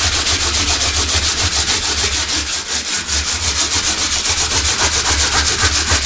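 Sandpaper scratching rapidly and steadily over cured crack-repair filler on a fibreglass shower tray, smoothing the patched cracks. There is a brief break about three seconds in.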